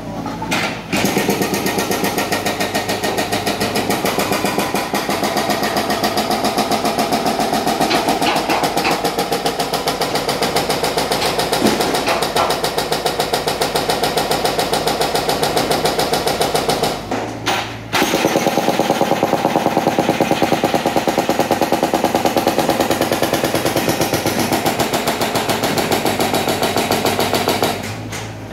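Hydraulic breaker on a Caterpillar mini excavator hammering the concrete road surface with rapid, even blows. It stops for about a second some seventeen seconds in, then starts again.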